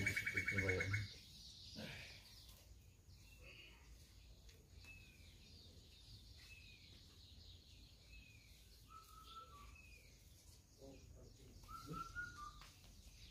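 A brief voice at the start, then faint bird chirps: short falling chirps repeating about every second or so, with two longer whistled notes near the end.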